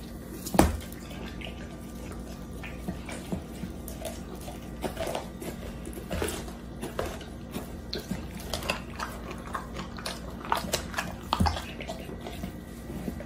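A dog chewing and tearing at a whole raw chicken on a tile floor: many short, sharp cracks and clicks of biting, with two louder thumps, about half a second in and near the end.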